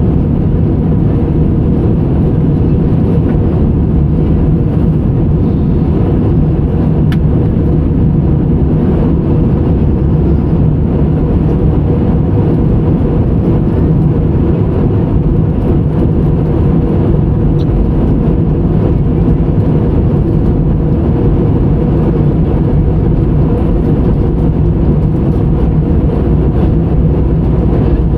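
Steady jet airliner cabin noise: the engines and airflow, heard inside the passenger cabin as an even, unbroken rumble.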